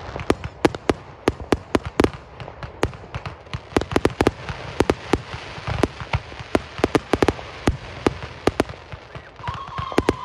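Fireworks going off in rapid, irregular bangs and pops, several a second, with a crackling hiss between them. Near the end a steady whistle joins in.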